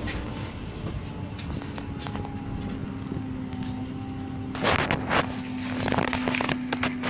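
Inside a moving city bus: steady running noise with a low whine that sinks slowly in pitch. A louder burst of hiss and rattle comes about four and a half seconds in, with scattered clicks.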